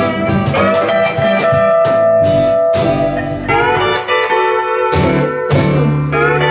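Hawaiian-style instrumental band playing: a lap steel guitar holds and slides between sustained notes over strummed rhythm guitar and ukulele, bass and light percussion. Picked up by a camcorder's built-in microphone.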